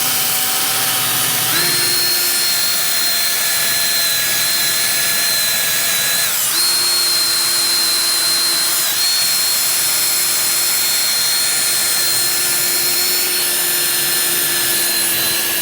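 Electric drill spinning a wire brush against an alloy scooter part to scour off corrosion: a steady high motor whine over scratchy brushing. The pitch steps up about a second and a half in and sags briefly about six seconds in as the brush is pressed harder onto the part.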